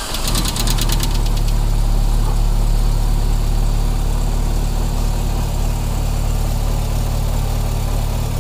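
VW Golf Mk3 four-cylinder petrol engine just started, catching in the first second and then idling steadily. It is running to circulate an engine-flush cleaner through the old oil before the oil is drained.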